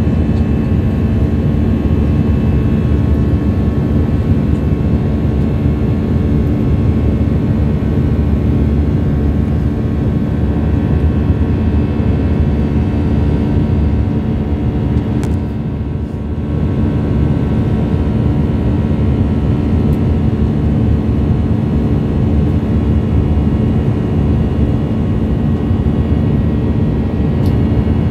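Cabin noise of an Airbus A319-112 climbing, heard from a window seat by the wing: the steady roar and hum of its CFM56-5B jet engines and the airflow. It dips slightly for about a second, roughly 16 seconds in.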